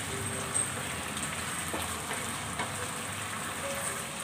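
Ground pork in sauce sizzling in a nonstick frying pan, with a cornstarch-and-water slurry just stirred in. A wooden spatula stirs it, giving a few light scrapes and taps against the pan.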